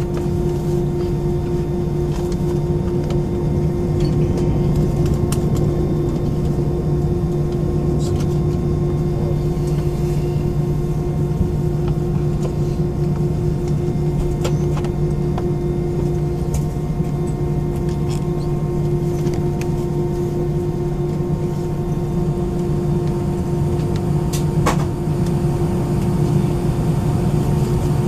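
Airliner cabin noise aboard an Airbus A319 on the ground before takeoff: the IAE V2500 engines at idle and the air conditioning make a steady hum with a couple of constant tones. A few faint clicks come from inside the cabin.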